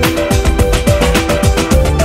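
Upbeat background music with a quick steady beat and a stepping melody.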